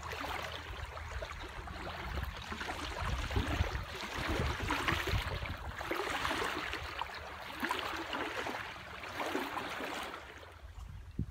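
Water lapping at the bay's edge, an irregular gurgling wash, with wind buffeting the microphone. Near the end the noise drops noticeably quieter.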